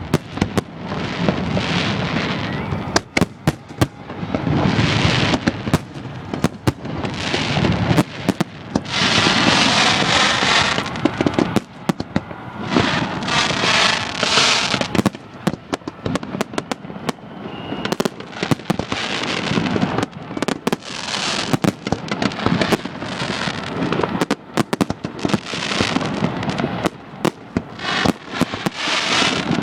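Fireworks going off close overhead: many sharp bangs, some in quick runs, over swelling showers of crackling.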